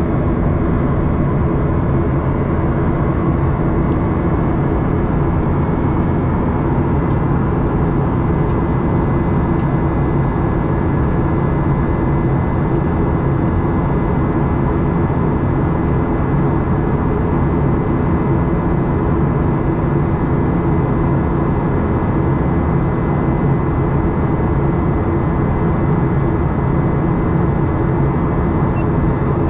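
Boeing 737-800 cabin noise from a window seat: its CFM56-7B jet engines and the air around the cabin make a steady, loud drone with a faint thin whine, unchanging throughout.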